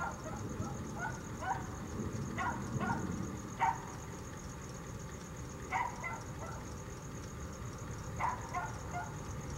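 Dog barking in short clusters of a few barks, with pauses of a couple of seconds between them, over a steady low background noise.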